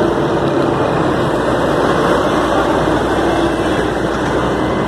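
Steady rumble of road traffic and running engines, with no distinct knocks or impacts.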